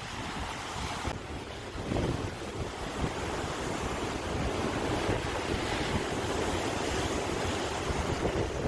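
Sea waves washing and breaking, a continuous rushing wash with low rumbling and a swell about two seconds in, with wind buffeting the microphone.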